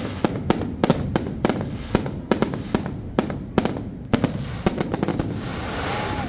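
Fireworks going off: a quick, irregular run of sharp bangs, two or three a second. About four and a half seconds in they thicken into a dense crackling hiss.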